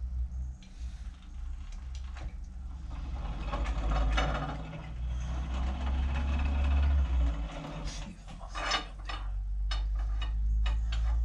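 Edgwick metal-working lathe running under power with a steady motor hum while its tool cuts an Acme lead-screw thread. The cutting noise swells through the middle, and a few sharp metallic knocks come about three quarters of the way in.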